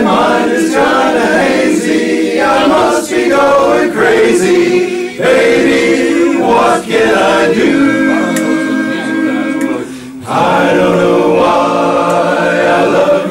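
A group of men singing a barbershop tag a cappella in close harmony, holding long ringing chords. The sound drops out briefly about ten seconds in, then the chords come back in.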